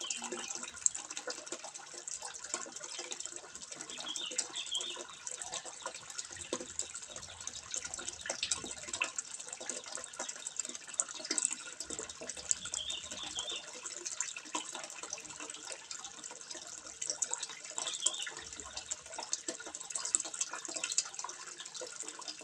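Water trickling steadily into a fish pond, a continuous splashing with many small drips. A faint, short high chirp recurs about four times over it.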